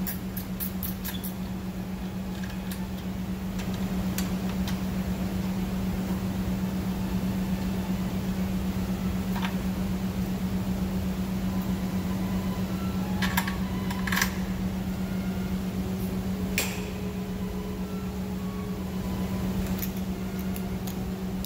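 A steady low electric hum, with a few sharp clicks and taps scattered through it.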